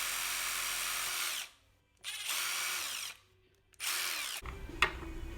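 Cordless power drill drilling a mounting hole in an ATV handguard, running in three spurts and spinning up and down between them.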